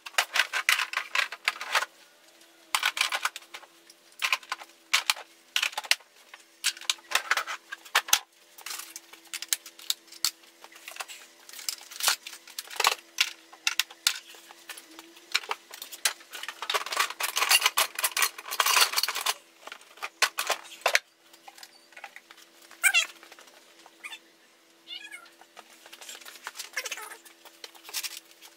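Tools and parts clattering and rustling on a workbench as it is cleaned up, in irregular bursts of knocks, clicks and scraping over a faint steady hum. A few brief wavering squeaks come near the end.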